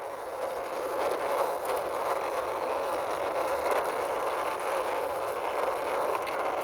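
Toy truck pushed along by hand, its wheels rolling steadily over the surface with a continuous rumbling hiss.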